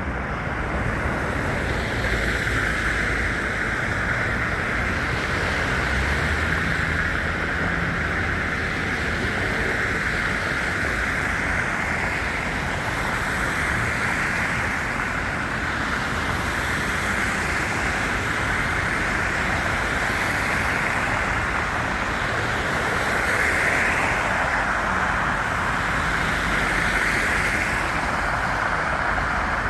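Steady city street noise in a snowstorm: an even hiss of road traffic and wind over a low rumble, with no single vehicle standing out.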